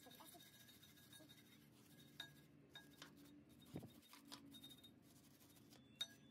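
Faint scratching of a hand wire brush scrubbing a rear brake caliper bracket clean, with a few light clicks and taps, the sharpest just before the end.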